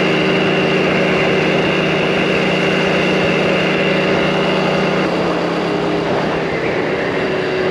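Engine of a Mondial Turismo 80cc scooter running steadily while riding, with a steady rush of riding noise under it; the engine note drops slightly about five seconds in.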